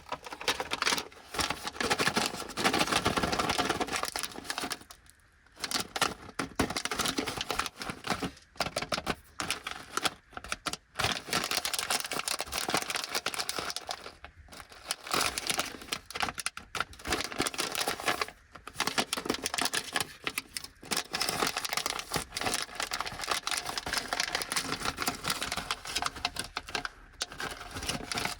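Plastic snack bags from an Anpanman caramel corn four-pack are crinkled and torn open by hand, making dense crackling and rustling with many fine clicks. It comes in runs separated by a few short pauses.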